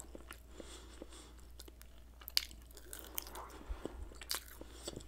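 Close-miked chewing of a bite of kabob: soft, scattered mouth clicks and smacks, with a couple of sharper clicks about two and a half and four and a half seconds in.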